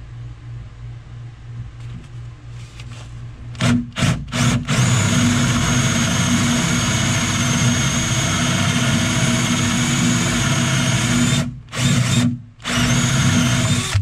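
Bosch cordless drill boring a shallow hole into a plywood boat transom with a Forstner bit. It gives a few short trigger bursts about four seconds in, then runs steadily with a high whine, stopping briefly twice near the end.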